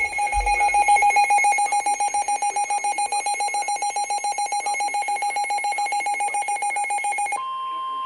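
A weather alert radio sounding an alarm: a loud, high, rapid beeping. Near the end it switches to the steady single tone of the NOAA Weather Radio warning alarm, which signals that a warning is being broadcast.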